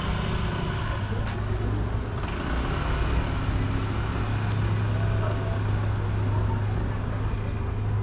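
City street traffic noise: a steady low engine hum from a motor vehicle close by, growing louder about halfway through.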